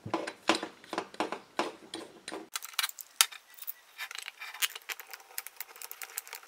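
Irregular light metal clicking and clinking of a steel crankcase assembly tool being handled: a nut spun up its threaded rod by hand and the tool's parts knocking together, turning into a rapid run of small clicks.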